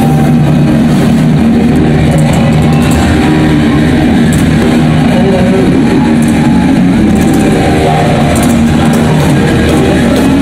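Live hard-rock band playing loud and steady through a concert PA, electric guitar to the fore over heavy bass, heard from within the crowd.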